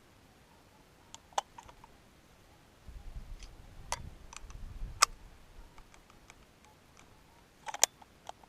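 Scattered sharp clicks and knocks, about half a dozen, with a low rumble of handling noise in the middle.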